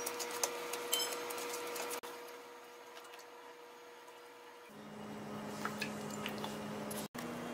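Faint soft handling sounds and a few light clicks as hands press and shape soft rice-flour dough into a cup on a steel plate, over a steady background hum. The hum drops in pitch about two-thirds of the way in, and the sound cuts out for an instant near the end.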